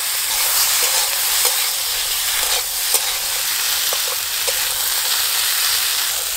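Cut radish, taro root and aubergine sizzling steadily in hot mustard oil in a metal karahi while a spatula stirs them, with scattered light clicks of the spatula and spitting oil.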